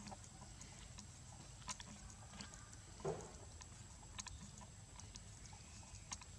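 A young long-tailed macaque eating corn on the cob: faint scattered clicks and crunches as it bites and chews kernels, with one louder sound about three seconds in.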